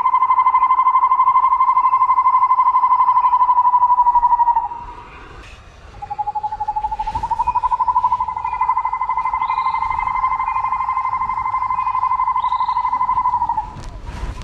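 Two long, steady, buzzing animal calls at one high pitch, finely pulsing throughout. The first cuts off about four and a half seconds in; the second starts about a second and a half later, rising slightly at its start, and cuts off near the end. A few faint clicks and short chirps come in the gap and near the end.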